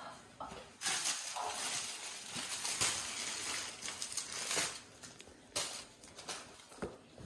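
Dog chewing a plastic ball toy and scuffling on the floor: a rough crunching noise for a few seconds, then a few separate knocks.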